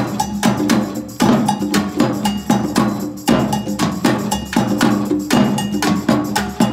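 Ensemble of drums and hand percussion playing a brisk, steady rhythm of sharp strikes, with short ringing metallic notes over a low drum tone.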